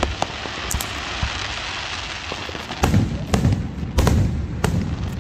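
Fireworks going off: a dense crackling hiss, then several sharp booming bangs starting about three seconds in.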